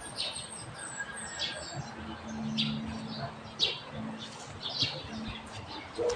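Small birds chirping in short, repeated high calls over a low steady background hum.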